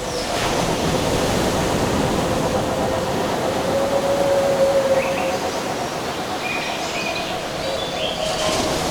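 Steady rushing noise with a low sustained tone underneath, and a few short bird chirps in the second half.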